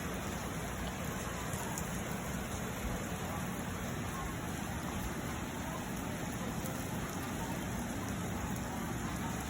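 Rain falling steadily, an even hiss with the odd sharper drop tick.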